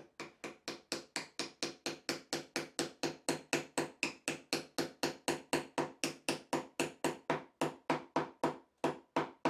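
Small mallet tapping a hand-cut dovetail joint together, the tail board being driven into the pin board: a steady run of quick, even taps, about four a second, that stops suddenly near the end.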